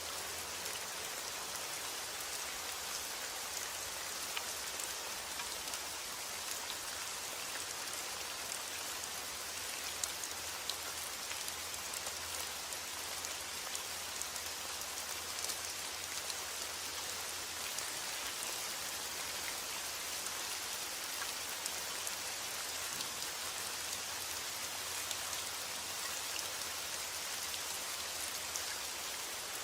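Steady rainfall, an even hiss of rain on a surface with many small drop ticks scattered through it.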